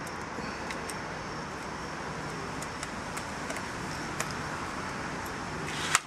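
Steady traffic noise, with a few light clicks and taps from the laptop's plastic memory-compartment cover being fitted back on; a sharper click about four seconds in and a louder short snap just before the end.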